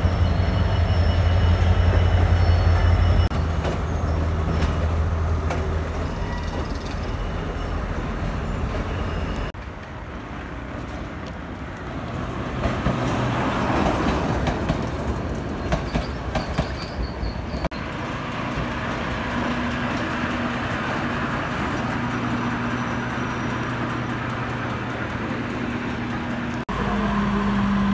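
A diesel locomotive's engine running close by with a steady low drone. After an abrupt change, the rumble and clatter of a passenger train on the rails with sharp wheel clicks. Then a diesel multiple unit standing at a platform, its engine idling with a steady hum.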